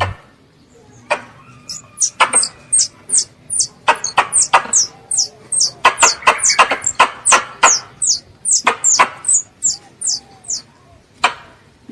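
Young squirrel calling for its mother: a rapid run of short, high-pitched chirps, each falling in pitch and starting with a sharp click, several a second, from about two seconds in until about ten and a half seconds, then one lone click near the end.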